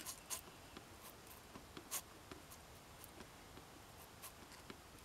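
Near silence with a few faint light clicks and scratches, the loudest about two seconds in: small handling sounds of a squeeze bottle of acid being worked against the fouled gimbal hinge of a boat's sterndrive.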